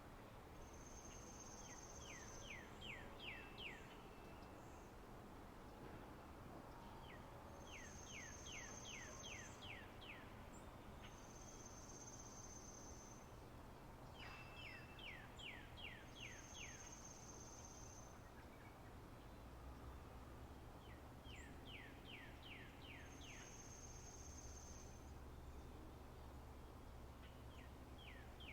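Soft springtime birdsong: a thin high whistle held for a second or so, and quick runs of six to eight falling notes, repeated every few seconds.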